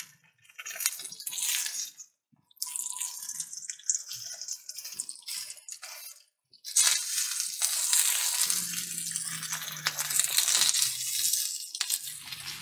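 Bell pepper pieces sizzling in hot oil in a cast-iron skillet as more are laid in. The hiss comes in several stretches with brief breaks.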